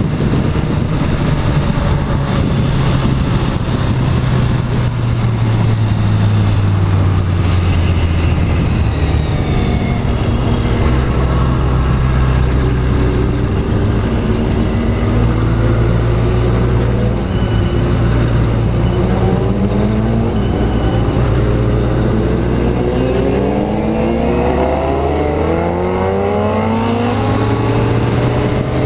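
Kawasaki Z motorcycle engine running under way, its note holding steady with small step changes. In the last third it rises in several sweeps as it accelerates up through the gears.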